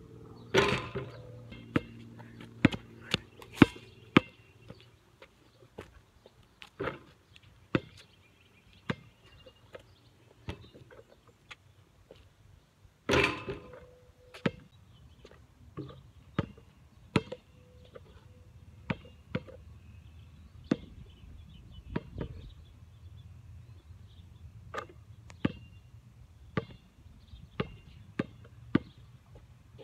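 A basketball smacking on asphalt in a string of sharp bounces, roughly one a second. About thirteen seconds in, a louder hit with a short ring as the ball strikes the hoop.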